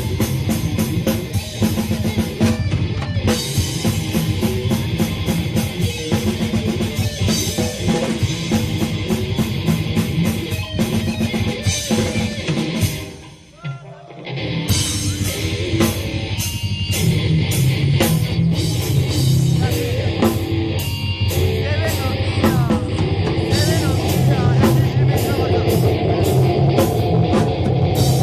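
Live rock band playing, with a drum kit to the fore over guitar; about halfway through the band drops out briefly and then comes back in.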